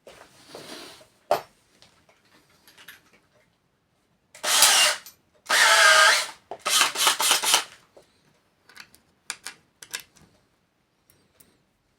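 Power drill-driver running in three short bursts about halfway through, its motor pitch dipping and rising under load as it drives small self-tapping screws; small clicks and handling knocks around it.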